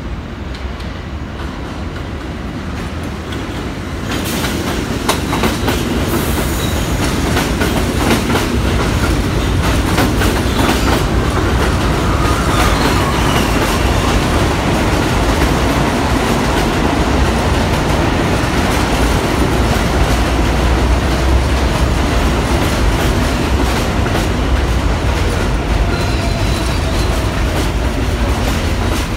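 New York City subway train running past close alongside the elevated platform, its wheels clattering over the rails of the steel structure. The noise gets louder about four seconds in as the train comes alongside, then stays steady.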